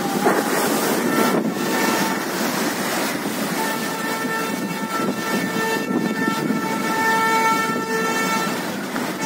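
Storm wind and heavy surf breaking over a seawall, a steady rushing noise, with a long horn-like tone held over it from about a second in until near the end, breaking off briefly once or twice.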